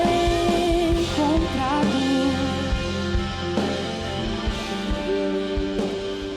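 Live worship band music: sustained chords with a low, steady beat underneath and a gliding melody line on top, between sung lines.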